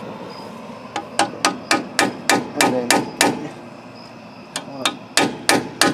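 Hammer tapping a seal driver to seat a new rear axle seal in the axle housing: a quick run of about ten sharp metal-on-metal taps at roughly four a second, a pause of about a second, then several more taps near the end.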